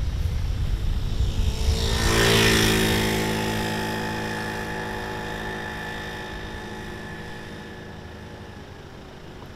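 Motor scooter passing close by about two seconds in, then riding away, its engine note fading steadily. Wind rumbles on the microphone at the start.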